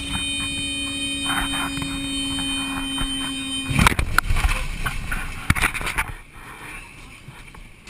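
A cockpit warning alarm sounds as a steady tone over cabin noise in a Cessna Grand Caravan gliding without engine power, heard muffled through a waterproof camera housing. About four seconds in, the alarm cuts off as the plane hits the ocean with a loud crash, followed by a few more knocks and rattles.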